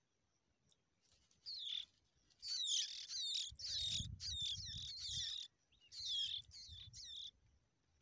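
Skylark chicks begging as the parent arrives: rapid runs of high, thin chirps that start about a second and a half in and stop sharply near the end, with a brief break in the middle. A low rumble sits under the loudest stretch.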